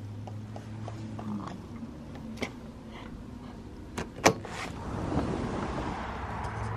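A glass door being opened: sharp latch clicks about four seconds in, then a steady rush of outdoor noise coming through the opening, over a low hum at the start.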